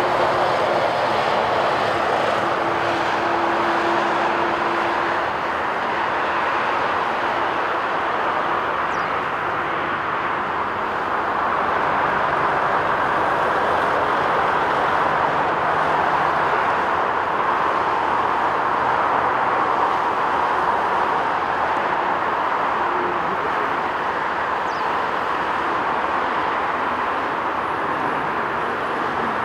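Rolls-Royce Trent 700-powered Airbus A330-243 airliner on final approach with landing gear down, a steady rushing jet roar. A faint steady tone lies under it during the first few seconds.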